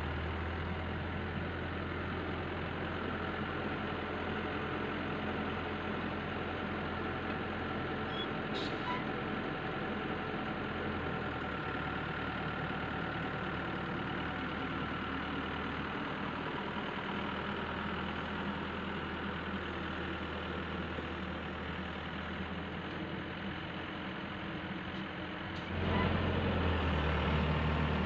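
Wheeled excavator's diesel engine running steadily as the machine travels with a load of pipe in its bucket. About two seconds before the end it turns louder, heard from inside the cab.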